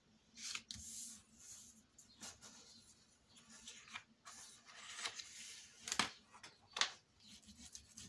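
Sheets of white cardstock rustling and sliding on a wooden tabletop as they are moved and folded by hand, with a few sharp taps, the loudest about six seconds in.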